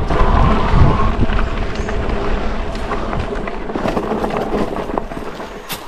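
Fat-tyre electric bike ridden over a dirt and gravel trail: wind on the microphone and the tyres rolling over rough ground, with many small rattles and clicks. Loudest about a second in, easing off toward the end.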